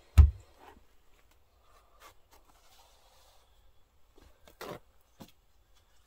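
Handling noise from parts and tools being worked on a bench: one heavy thump just after the start, then faint scraping and rubbing, a knock about three quarters of the way through and a sharp click just after it.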